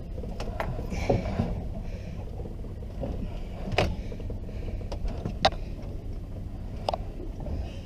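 Steady low rumble of the boat's engine running, with a few sharp knocks scattered through it, the loudest about four seconds in.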